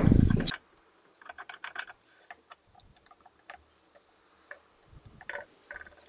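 Scattered faint clicks and taps of a bar clamp being slid and screwed tight on a glued wooden lure body.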